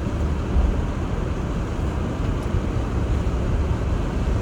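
Steady road and engine noise heard inside a moving car's cabin: a low rumble with an even hiss over it.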